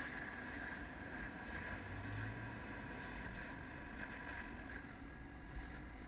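Omicron CPC 100 test set running steadily while putting out 100 A AC: an even, quiet machine hum and fan-like noise with faint steady high tones.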